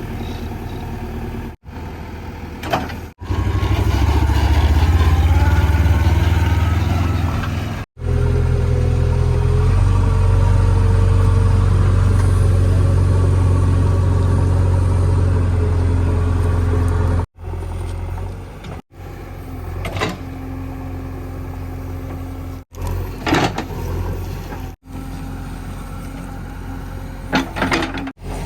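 JCB 3DX backhoe's diesel engine running, revving up hard in two long stretches as it works, with a few short clunks in between. The sound is broken by several abrupt cuts.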